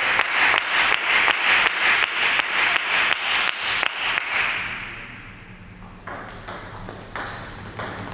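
Clapping that dies away about four seconds in, then a table tennis rally: sparse sharp clicks of the celluloid ball off the bats and table, with a brief high shoe squeak on the hall floor.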